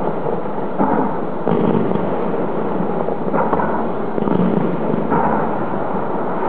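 A fireworks display heard from afar: overlapping booms merge into an unbroken din, with fresh bursts swelling up every second or so.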